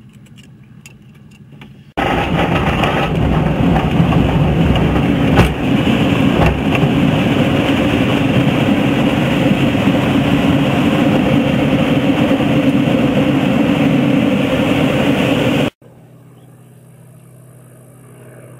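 Loud, steady rush of airflow and tow-plane engine noise heard from inside a glider under aerotow. It starts abruptly about two seconds in and cuts off sharply near the end, giving way to a much quieter, distant engine sound.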